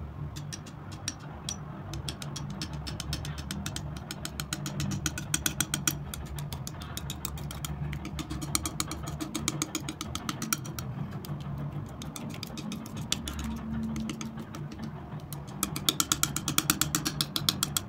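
Metal palette knife spreading and folding thick wet acrylic paint: rapid, close-set wet clicks, growing denser and louder near the end, over a steady low hum.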